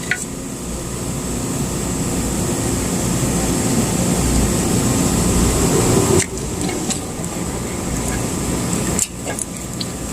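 Steady background machinery hum with a faint high whine, with a few light clicks of wire terminals being handled about six seconds in and again near the end.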